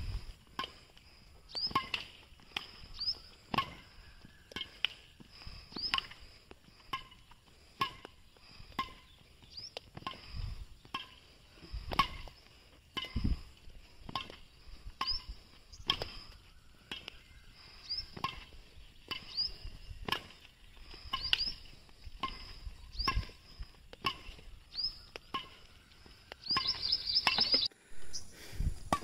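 Badminton racket strings hitting shuttlecocks again and again, sharp hits about one to two a second, as shuttles are fed and returned in a practice drill. Birds chirp in the background, thickest near the end.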